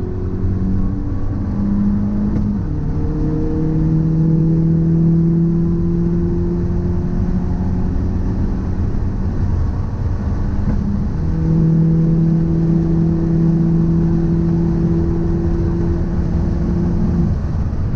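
A car driving on the road, with a continuous low rumble and a steady hum, as part of a test for an abnormal noise and vibration that the owner suspects comes from a driveshaft or wheel hub. The hum steps down in pitch about two and a half seconds in and drops out briefly past the middle.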